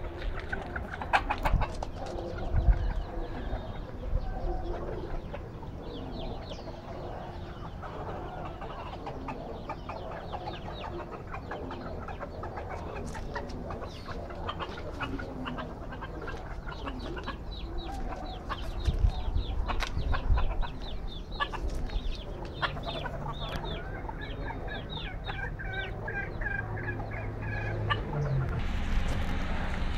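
Bantam chickens clucking in quick runs of short calls, with occasional low bumps. A steady low hum joins near the end.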